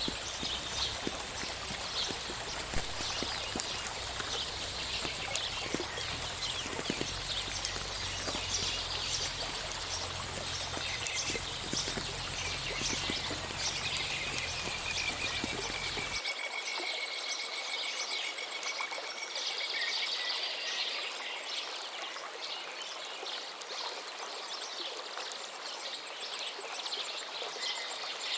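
Steady rain with dripping and pattering water, while birds chirp and call over it. About halfway through, the low rumble underneath drops out and the rain and birdsong carry on.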